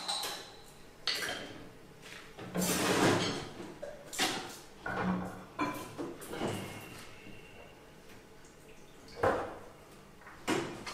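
Dishes and cutlery being washed up by hand at a kitchen sink: irregular clinks and clatters of crockery, with some splashing water.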